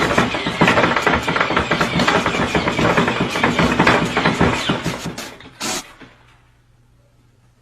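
A baby-burping machine clattering and knocking rapidly and irregularly, dying down about five seconds in; one short burst of noise follows, then only a faint low hum.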